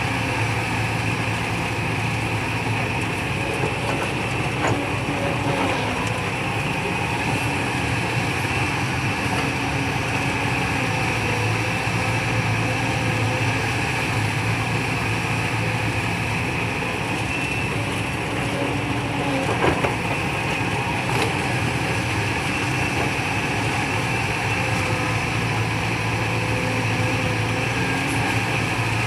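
Excavator's diesel engine running steadily, with a steady whine above it and two short knocks, one about five seconds in and one near twenty seconds.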